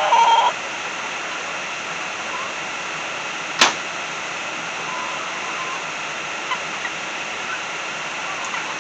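A steady rushing hiss, like flowing water, runs throughout. Over it there is a short pitched call right at the start, one sharp click about three and a half seconds in, and a few faint chirps.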